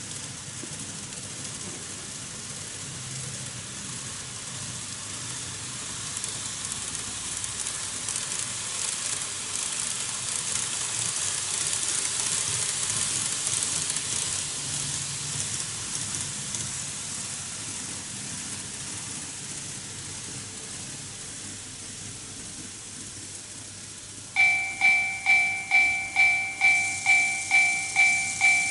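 Model trains running on TOMIX track: a rushing hiss of wheels and motors that swells and fades as a train passes. Near the end the TOMIX Automatic Level Crossing II starts its warning bell, a two-tone ding repeating about twice a second.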